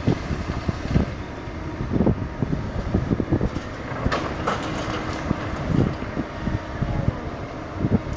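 Kobelco 220 hydraulic excavator working: its diesel engine runs steadily under irregular clanks and knocks, with a brief scrape about four seconds in.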